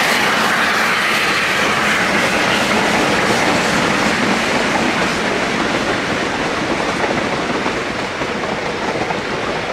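Railway passenger coaches rolling past on a curve, their wheels clattering over the rail joints in a steady rattle that slowly fades as the end of the train draws away.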